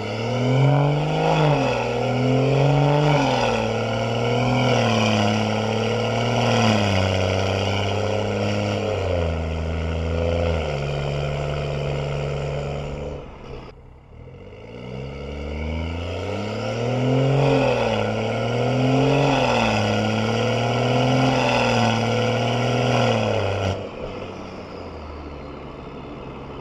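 BMW 440i's B58 turbocharged inline-six, running through a catless downpipe, pulling under acceleration: the engine note climbs in pitch and drops back in steps at gear changes, cuts off abruptly about halfway through, then climbs again before settling to a quieter, steady drone near the end.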